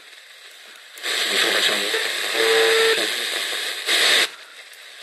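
Videoton Camping de luxe radio's loudspeaker hissing with loud static as the tuning knob is turned between stations, from about a second in, with a short steady whistle near the middle and a second brief burst of static near the end; faint hiss before and after.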